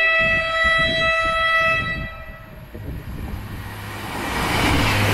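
Northern Class 158 diesel multiple unit sounding its horn, a steady note held for about two seconds that cuts off, followed by the rising noise of the train's wheels and diesel engine as it approaches.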